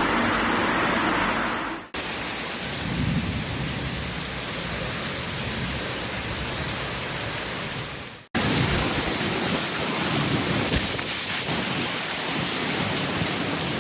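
Heavy rain pouring down in a steady, loud hiss, heard across three clips joined with sudden cuts about two seconds and eight seconds in.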